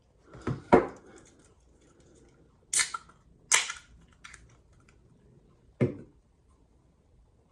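Hard objects being handled and set down on a work surface: about six separate knocks and clacks, a couple of them with a brief scrape, with quiet between.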